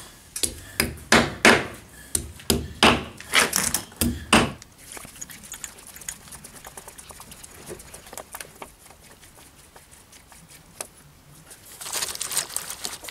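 Hammer striking at the foot of a concrete wall: about nine sharp blows, roughly two a second, for the first four seconds or so. Faint small clicks follow, and near the end there is scraping and rustling as he handles the parts.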